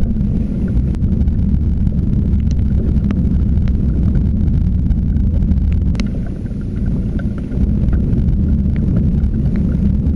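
Wind buffeting the microphone: a steady low rumble. A few faint clicks sound over it, the sharpest about six seconds in.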